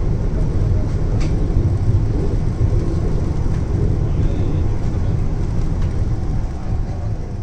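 Hyderabad Metro train running on an elevated track, heard from inside the carriage: a steady low rumble of wheels and running gear, getting a little quieter near the end.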